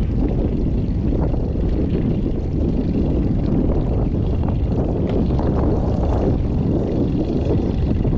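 Strong wind buffeting the microphone, a steady low rumble with no let-up.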